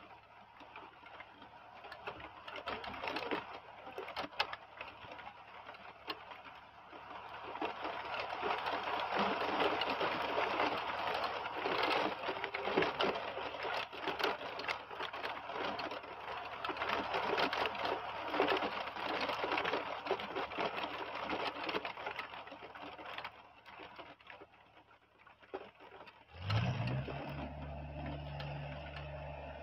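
Heavy rain falling and pattering, growing louder for a long stretch in the middle and then easing off. Near the end a low steady hum starts suddenly.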